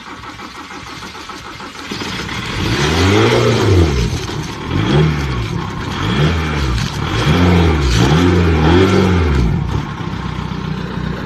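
Volkswagen Jetta engine running with its exhaust pipe filled with water from a hose, revved about six times in quick rises and falls of pitch over a hiss, then settling back to a steady run near the end.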